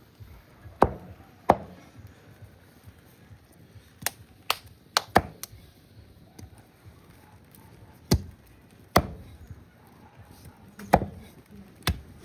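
A heavy blade chopping down onto a board: about ten separate, irregular blows, some coming in quick pairs.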